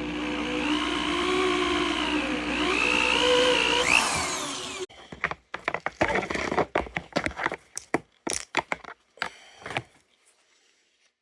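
Drill driving a Stripmeister wire stripper. The motor's pitch rises and falls as insulated wire is pulled through the blade, then it stops about five seconds in. Irregular clicks and rattles of the stripped wire being handled follow.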